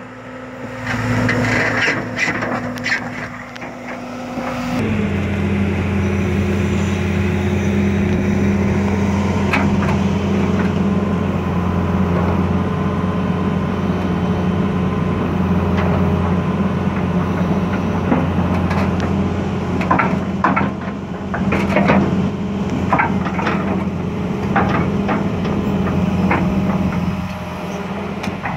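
A John Deere 200LC hydraulic excavator's diesel engine running steadily; about five seconds in it grows louder and deeper as the hydraulics are put to work moving the bucket. In the second half, several sharp metal knocks come from the bucket and its linkage.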